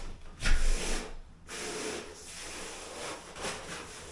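IsoTherm thermal liner being smoothed down onto the wall: a steady rubbing hiss, with a low bump about half a second in.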